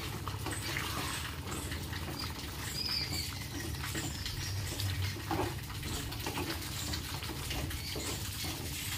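A spatula stirring boiled chickpeas through freshly added hot water and masala in a non-stick pan: wet sloshing and soft scraping in irregular strokes, over a steady low hum.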